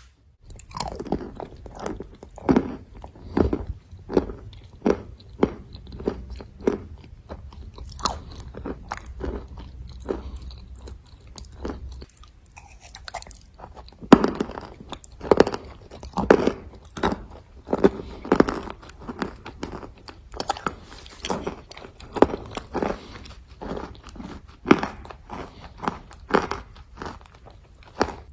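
Close-up chewing and crunching of pieces of white edible clay, one or two sharp crunches a second in a steady run.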